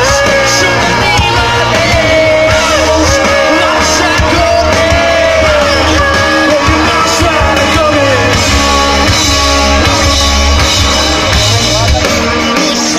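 A rock band playing live, with a sung vocal line over electric guitars and drums.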